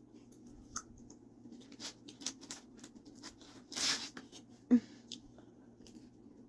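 Close-up eating sounds of pizza: soft chewing with small scattered crackles, then a louder tearing rustle about four seconds in as a slice is pulled apart, followed by one sharp tap.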